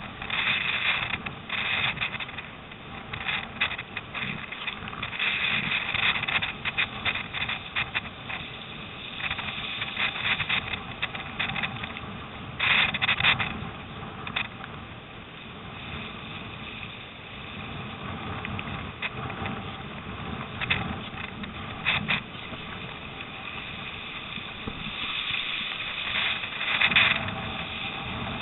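Wind and splashing water on a surfski's deck-mounted camera microphone in storm-force wind, a continuous rushing noise with irregular louder bursts as the boat runs through the chop.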